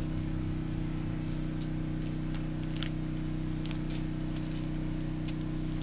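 Steady motor or engine hum, constant in pitch and level, with a few faint clicks.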